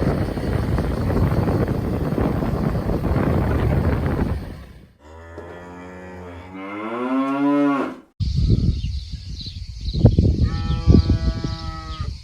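A cow mooing once, a long call of about three seconds that rises in pitch, about halfway through. Before it there is a steady rushing noise of wind on the microphone.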